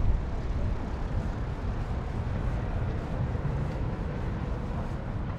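Steady low rumble of vehicle noise, with no distinct events standing out.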